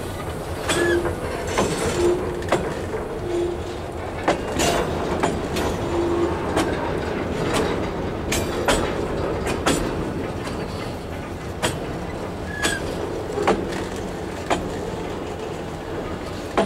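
Loaded freight tank cars rolling past close by: a steady rumble of wheels on rail with irregular sharp clacks as the wheel sets cross rail joints, and a few brief squeaks from the wheels.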